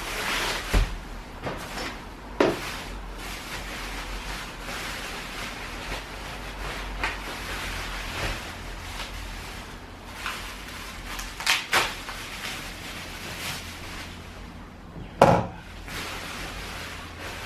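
Plastic bubble-wrap packaging rustling and crinkling as pram parts are unwrapped, with a few knocks and thumps from parts being handled, the loudest near the end.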